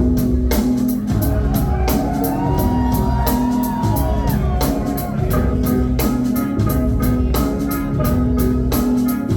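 Live rock band playing an instrumental passage: a steady drum beat with hits about twice a second over a repeating bass line and sustained keyboard notes, with a gliding, wavering high tone over it from about two to four seconds in.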